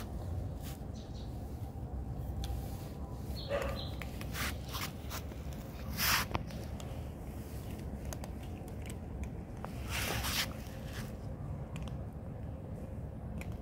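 Several cats eating dry kibble: small crunches and clicks of pellets, with two louder bursts of noise about six and ten seconds in.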